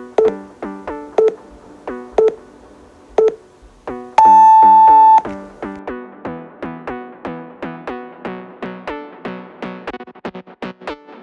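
Interval-timer countdown beeps, one a second, ending in a long, higher beep about four seconds in that marks the end of the exercise interval. Electronic music with quick plucked keyboard-like notes plays underneath and carries on after the beeps.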